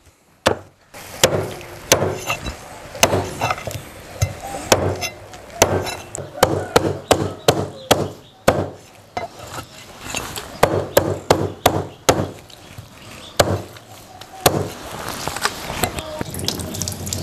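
Chinese cleaver chopping a whole raw duck into pieces through meat and bone on a thick round wooden chopping block: a long run of sharp, irregular chops, about two a second, thinning out near the end.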